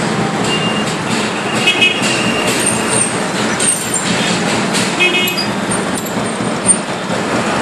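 Road traffic: scooter and truck engines running steadily in slow street traffic, with a few brief high tones about two and five seconds in.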